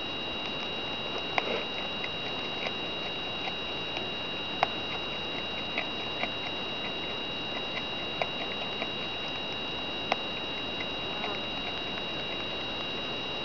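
Woodchuck chewing food: irregular small clicks, a few a second, with a handful of sharper ones, over a steady high-pitched whine.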